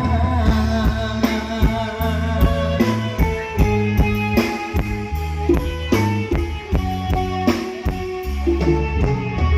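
Live band playing an instrumental passage with a moving bass line and a steady beat, no singing.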